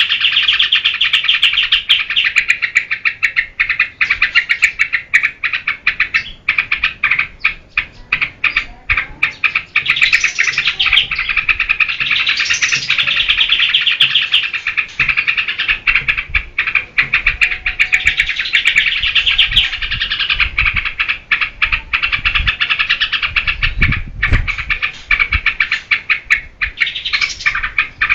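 Yellow-vented bulbul (trucukan) singing in a fast, continuous chattering run, broken by a few brief rising notes.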